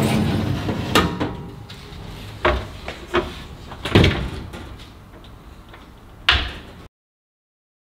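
Metal oven rack with a baking tray pushed in along its runners, with a scrape and clicks. The oven door is then swung shut with a few knocks, the loudest about four seconds in, and a last clunk near the end before the sound cuts out abruptly.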